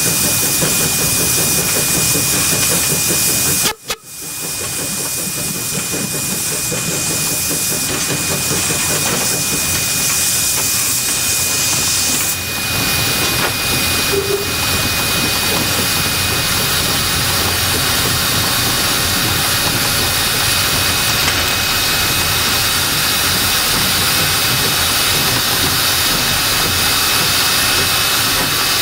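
Steam locomotive NM25 running under way, heard from on board: a steady loud hiss of steam over the noise of the moving train, with a faint steady whistling tone throughout. The sound cuts out briefly about four seconds in, then builds back up.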